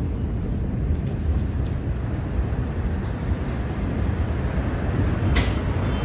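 Steady low rumbling roar, with a single short sharp crack about five seconds in.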